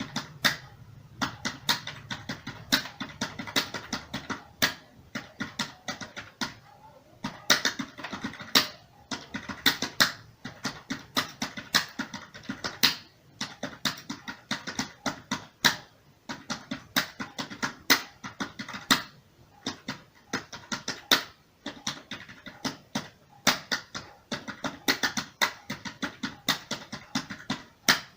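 Typing on a computer keyboard: quick, irregular key clicks, several a second, in a steady run broken by short pauses about six seconds in and again near the middle.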